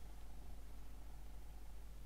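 Quiet room tone: a steady low hum with no distinct handling sounds.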